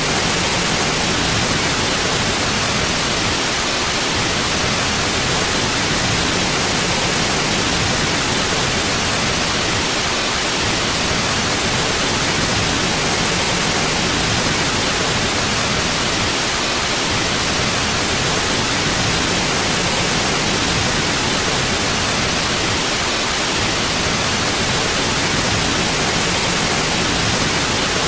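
White noise: a steady, even hiss that does not change in level.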